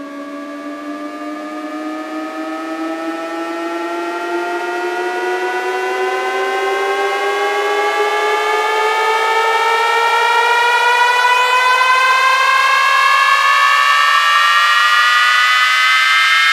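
Electronic siren-like tone with many overtones, climbing slowly and steadily in pitch and growing louder throughout: a build-up riser opening a DJ bass sound-check track.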